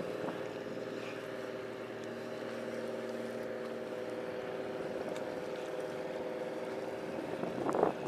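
Steady hum of a boat engine running, a drone with several steady tones held throughout. A short rustle comes near the end.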